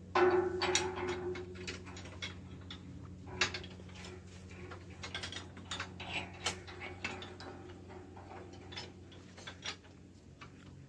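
Irregular light clicks and knocks over a steady low hum. A louder sound about a second long comes right at the start, and a single sharp knock a few seconds later.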